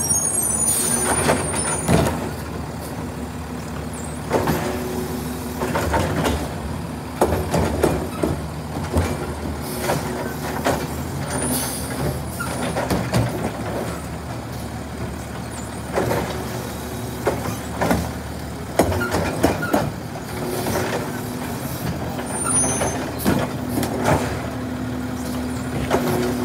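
Automated side-loader garbage truck working at the curb: its diesel engine runs with a steady hum while the hydraulic arm grabs, lifts and dumps wheeled trash carts, with repeated clunks and bangs of carts against the arm and hopper. There are a few brief hisses.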